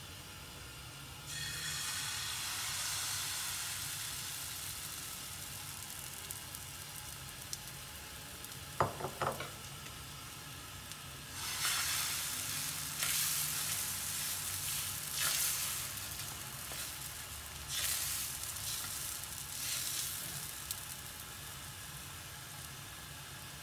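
Chickpea-flour (besan) batter sizzling as it hits a hot, ghee-greased iron tawa about a second in. A short metallic clink comes near the middle, then bursts of louder sizzling as a steel ladle spreads the batter thin; the sizzle eases off near the end.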